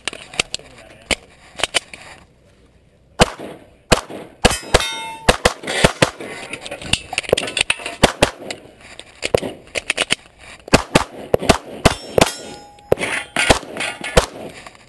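9mm Glock pistol firing a rapid string of shots, with steel targets clanging when hit. A few shots come first, then a pause of about a second, then a long run of quick shots and rings.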